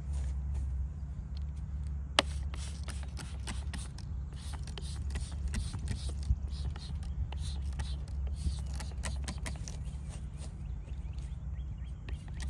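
Hand trigger spray bottle squeezed in rapid repeated squirts, several a second, each a short hiss of spray. It starts about two seconds in and pauses near the end, over a steady low rumble.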